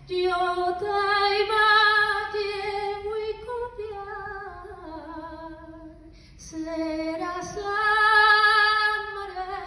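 A woman singing unaccompanied into a handheld microphone: slow held notes with vibrato in two phrases, the first sinking lower in pitch, with a short breath between them about six seconds in.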